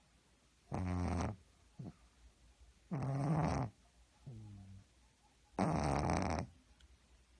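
A pug snoring heavily: three loud snores about two and a half seconds apart, each followed by a fainter breath.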